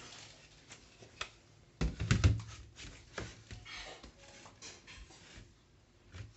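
Wooden wall shelves being set down on a tabletop: a quick run of knocks with a dull thud about two seconds in, followed by lighter taps and handling rustles.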